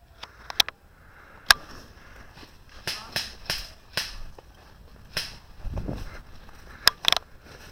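Airsoft guns firing single shots: about ten sharp snaps at uneven intervals, some in quick pairs, with a low rumble about six seconds in.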